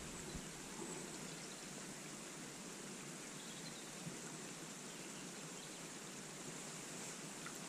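Faint steady outdoor ambience: an even hiss with a few faint, short high chirps.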